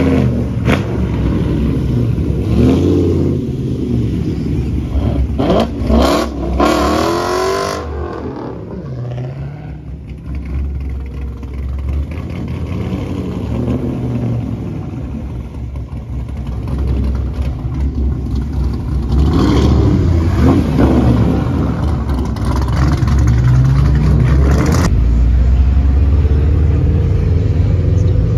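Car engine revving hard while its rear tyres spin and the car slides around in a burnout, the pitch climbing and falling in repeated sweeps. It eases off for a few seconds in the middle, then revs up again and runs loud near the end.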